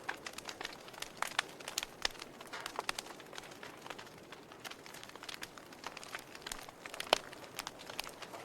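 Wood fire in a fireplace crackling: irregular sharp pops and snaps over a soft steady hiss, with one louder pop about seven seconds in.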